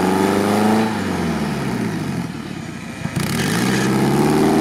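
A small 4x4's engine revving hard as the vehicle tries to drive out of a mud hole where it is stuck. The revs drop away about a second in and climb again near the end.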